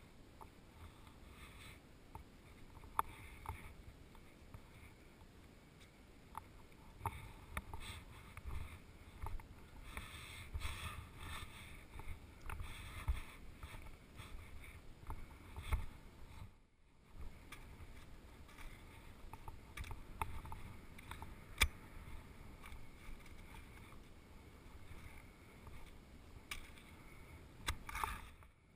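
Wind buffeting the microphone of a helmet camera, with skis scraping and crunching over snow-covered ice and a few sharp clicks scattered through. The sound cuts out briefly a little past halfway.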